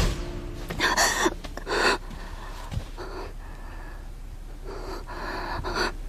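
A woman gasping and breathing hard in pain: two loud sharp gasps in the first two seconds, then fainter ragged breaths. It opens with a short sharp hit.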